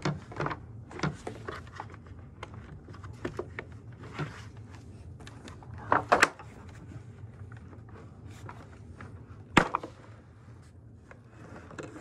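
Scattered knocks and clunks of a bagless upright vacuum cleaner being handled and laid flat on the floor, with one sharp knock about two-thirds of the way through, over a low steady hum.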